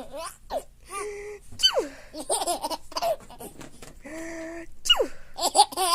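A baby laughing in repeated bursts, with gasping in-breaths between them, set off by sneezes.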